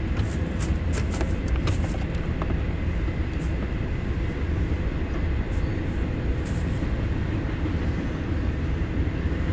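Steady low rumble of highway traffic, with a few light clicks during the first two seconds and again around the middle.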